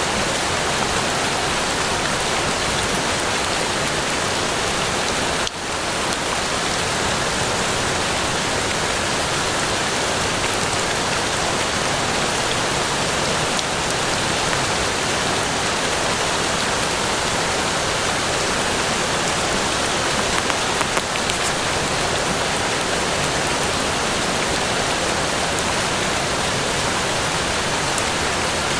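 Steady rain, an even hiss of falling water with a few louder drops. The level dips for a moment about five seconds in.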